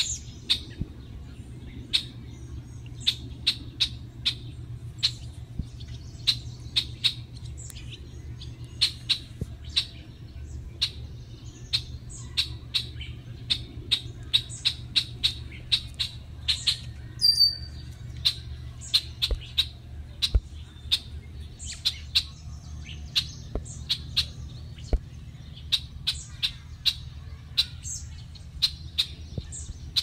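Canada goose goslings peeping: many short, high-pitched calls, several a second and unevenly spaced, over a low steady background rumble.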